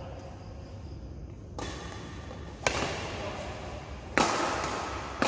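Badminton rackets striking a shuttlecock in a doubles rally: four sharp hits, about one every second or so, each echoing in the hall.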